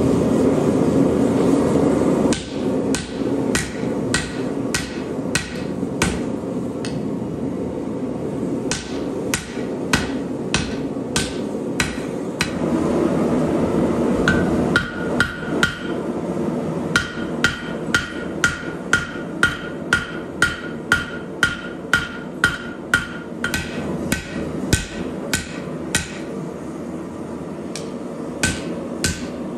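Hand hammer blows on red-hot steel, a hatchet head being forged on an anvil, in runs of about two blows a second, the anvil ringing with each blow. A steady rushing noise runs underneath, loudest at the start.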